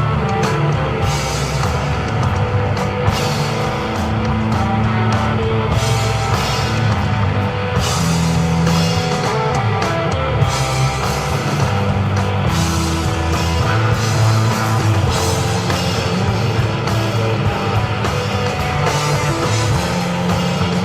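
Live instrumental desert rock played by electric guitar, bass guitar and drum kit. Held bass notes change every couple of seconds under steady cymbal work.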